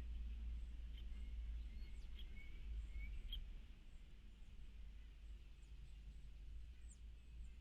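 Faint wild birds chirping, with scattered short calls, a few quick high downward sweeps and a rising whistle in the first half, over a steady low rumble.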